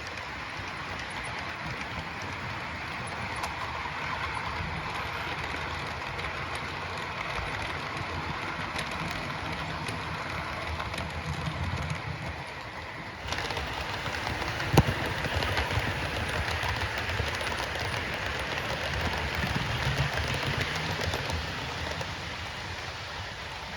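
Model train of Accurascale TransPennine Express Mk5 coaches running along the layout's track: a steady rumble and rattle of small wheels on rail. The sound changes abruptly about thirteen seconds in, and there is one sharp click a little later.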